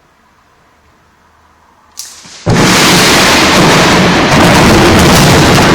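Close thunderclap: a sharp crack about two seconds in, then half a second later a very loud, sustained rumble that stays pinned near full scale and overloads the phone's microphone.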